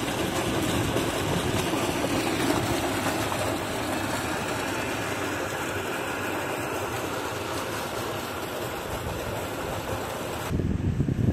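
Irrigation water gushing from a deep tubewell's outlet pipe and splashing into a concrete outlet tank, a loud steady rush. Near the end the sound changes abruptly to a duller, lower rumble.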